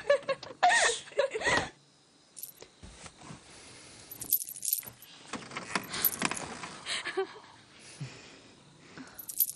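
Laughter trailing off in the first second or two, then a scattering of light metallic clinks and rattles at irregular intervals.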